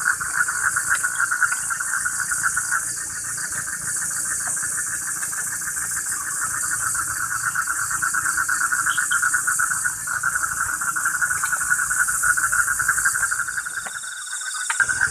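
Steady chorus of night insects: a shrill high trill layered over a lower, fast-pulsing one.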